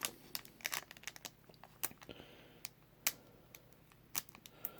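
Foil booster-pack wrapper crinkling and crackling in the hands in short, irregular bursts as it is pulled at to tear it open.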